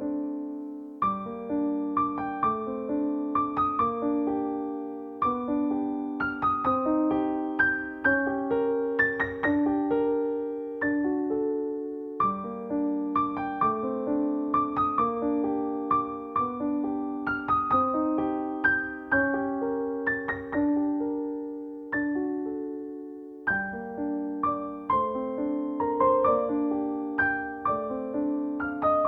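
Background piano music: a gentle melody of struck notes, each ringing and fading.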